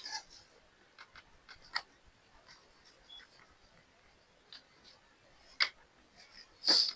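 Light clicks and taps of small objects being handled, scattered irregularly, with a short louder swish near the end.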